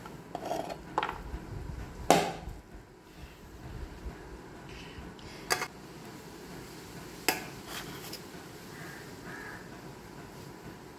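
Steel serving spoon clinking and scraping against a plate as rice is dished out, a few separate sharp clinks with the loudest about two seconds in.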